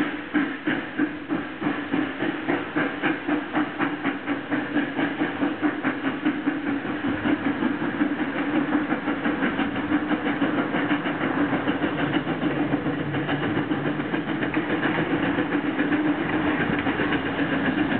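GWR steam railmotor No. 93 under way, its steam exhaust chuffing in a steady rhythm. The beats come about two or three a second at first and run closer together as it passes.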